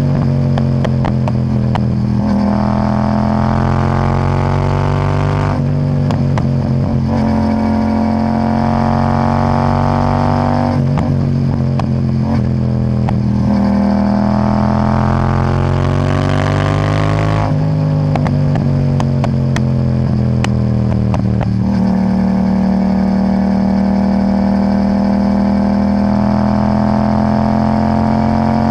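Yamaha MT-07's parallel-twin engine through a titanium Akrapovic exhaust with no catalytic converter, taken up in several long climbing pulls that each drop off sharply. Crackling pops and bangs come out of the exhaust as the revs fall. It runs more steadily near the end.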